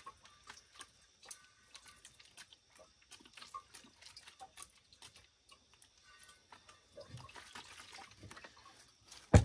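Nitric acid solution dripping and trickling into a glass beaker in scattered small drips, with one sharp knock right at the end.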